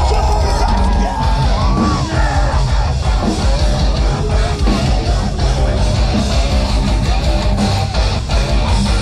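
Live heavy metal band playing loud, with distorted electric guitars and yelled vocals, heard from inside a festival crowd.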